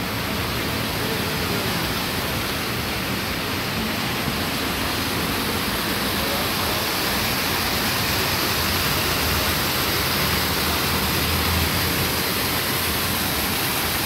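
Water from an artificial rock waterfall splashing down into its pool: a steady, even rush of falling water.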